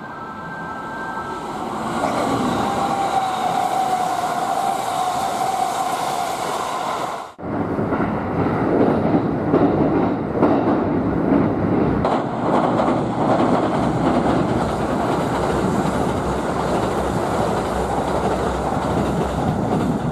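Kintetsu 80000-series Hinotori limited express electric train running. It first comes out of a tunnel and through a station, growing louder, with a steady whine for a few seconds. Then, after a sudden cut, comes a steady run of train noise with wheels on the rails.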